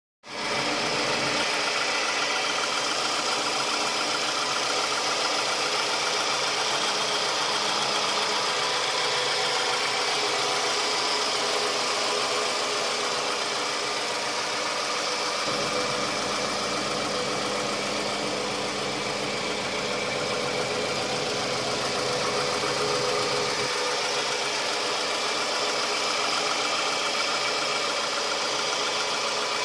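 Toyota Camry XV40's 2AZ-FE 2.4-litre four-cylinder engine idling steadily, with an extraneous noise that persists even with the accessory drive belt removed, so the noise does not come from the belt-driven accessories.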